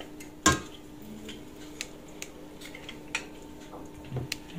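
Hand-held metal lime squeezer clicking and clinking over a stainless steel bowl as limes are pressed: one sharp clack about half a second in, then a few lighter clicks.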